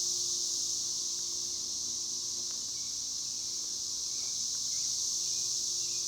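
Chorus of cicadas singing in the trees: a steady, high-pitched buzzing drone that holds without a break.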